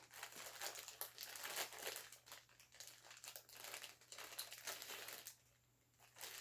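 Barbie Color Reveal doll packaging crinkling and crackling as it is unwrapped by hand, stopping about five seconds in.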